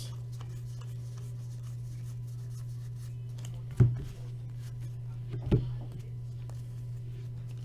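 Trading cards being handled and set down on a table: two sharp taps, the second about a second and a half after the first, over a steady low hum.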